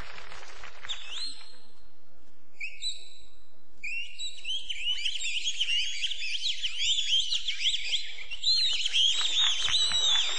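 Bird-like whistled chirping. A few single whistles come in the first three seconds, then from about four seconds in a dense flurry of quick rising and falling chirps and warbles, like a flock of small songbirds.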